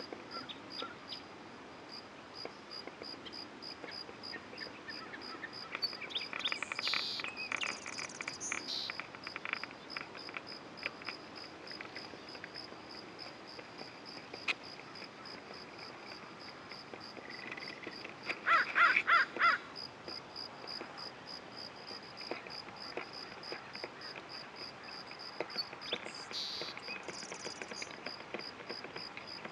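A crow cawing: a quick run of harsh caws about two-thirds of the way through. A few short, high bird chirps come earlier and near the end, over a faint steady high-pitched tone.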